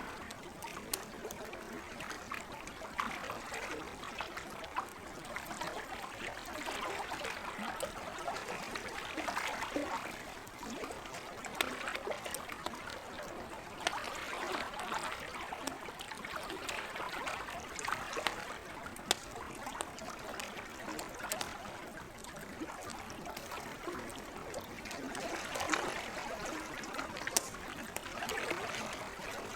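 Lake water lapping and trickling at the shore in slow swells every few seconds, with the scattered sharp pops and crackles of a wood campfire over it.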